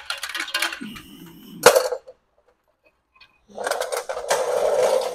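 Plastic headlight grille on a BMW E30 being pulled off by hand, rattling and clicking as it works free of its clips, with a sharp snap about two seconds in. Near the end comes a second or so of scraping and rattling as the grille comes out.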